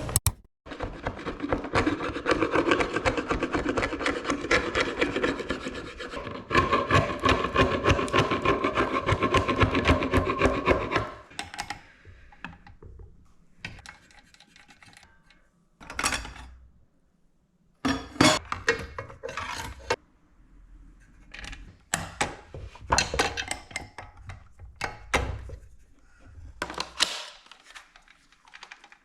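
A hand tool rubbing back and forth on wood in fast, steady strokes for about eleven seconds, with a short pause near the middle of that run, then in shorter separate bursts with gaps between them.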